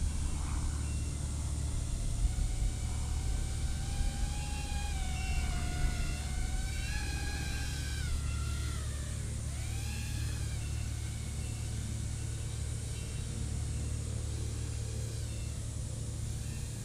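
Rotor X Atom 120 micro FPV racing quad's brushless motors and propellers whining, the pitch climbing and sagging with throttle. The whine falls away about eight seconds in and swells and fades once more around ten seconds, over a steady low rumble.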